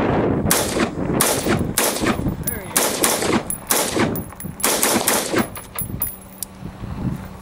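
A rifle fired about nine times in steady succession, a shot roughly every two-thirds of a second, the shots stopping about five and a half seconds in.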